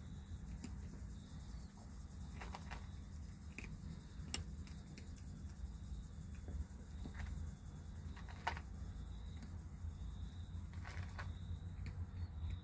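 Faint, scattered small clicks and rustles over a steady low hum, a few seconds apart, from hands moving on a kitten's fur.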